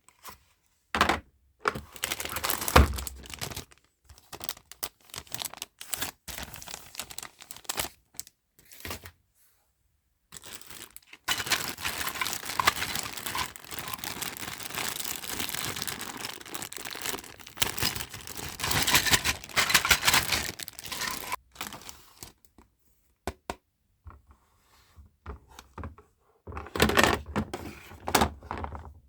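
Packaging being crinkled and torn open by hand, in bursts of rustling broken by sudden silent gaps, with a few knocks.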